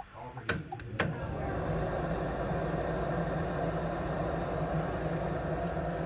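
Furnace control relay clicking three times, then the gas furnace's draft inducer motor starting and running with a steady hum on a call for heat.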